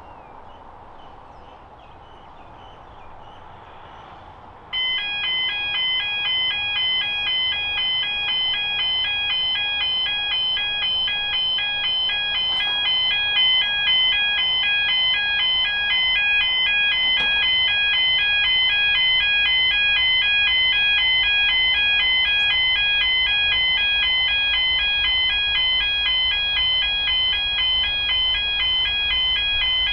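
Faint birdsong, then about five seconds in a railway level crossing warning bell starts up and rings on steadily in a fast repeating electronic chime, the signal of an approaching train.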